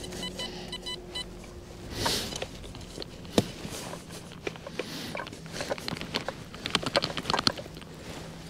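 Spade digging into sandy field soil: a sharp knock about three and a half seconds in, then a run of quick scrapes and crunches. A metal detector beeps in short pulses at the very start.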